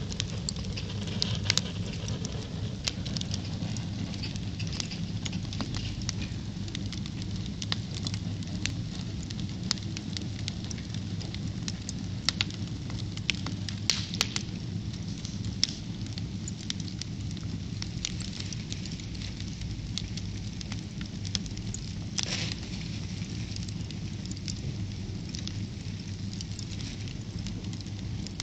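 Wood fire burning in a fireplace, crackling with frequent sharp pops and snaps over a steady low rumble, with a brief hiss about three-quarters of the way through.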